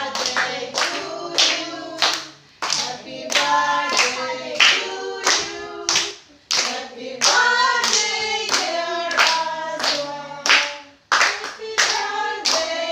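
A small group of children and a woman singing a song together while clapping in time, about two to three claps a second, with short breaks between sung lines.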